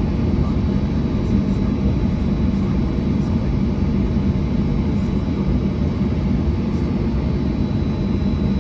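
Cabin noise of a jet airliner taxiing: a steady low rumble from the idling jet engines and the rolling aircraft, heard from inside the cabin, with a faint steady high whine.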